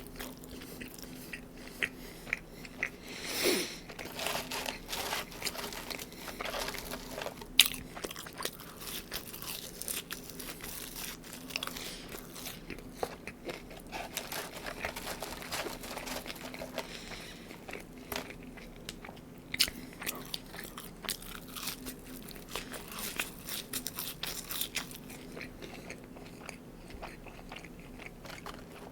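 A person eating McDonald's fast food close to the microphone: repeated bites and chewing with scattered sharp crunches and mouth clicks, the sharpest about a third of the way in.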